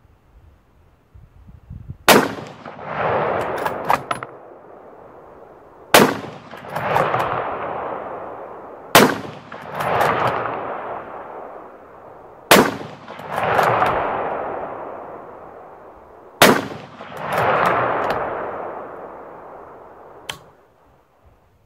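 Five rifle shots from a custom .260 Remington with a new Bartlein barrel, fired about three to four seconds apart. Each sharp crack is followed by a rolling echo that swells and fades over about two seconds, and short clicks come between some of the shots.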